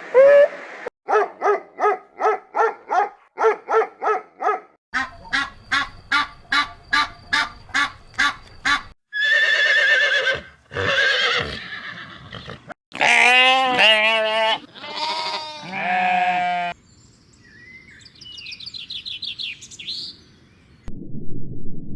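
A string of animal calls, one after another: first a fast run of short repeated calls, about three a second, then several longer drawn-out calls, with a fainter high-pitched call near the end.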